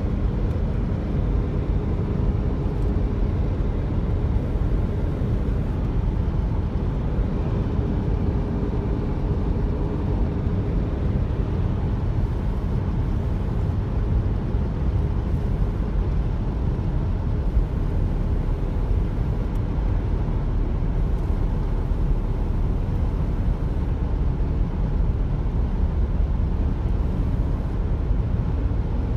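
Steady road noise inside a moving car's cabin: tyres rumbling on the concrete road deck and the engine running with a faint steady hum.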